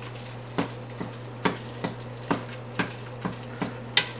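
A plastic spoon stirring ground beef in a stainless steel pot, its strokes knocking and scraping on the metal about twice a second, over the faint sizzle of the meat frying. A steady low hum runs underneath.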